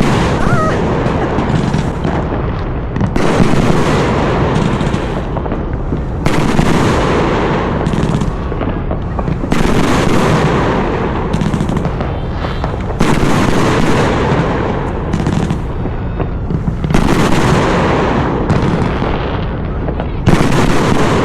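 Consumer fireworks cake (a single multi-shot box) going off in a loud, dense barrage of bangs and crackle, swelling in fresh waves every three to four seconds, finale-style.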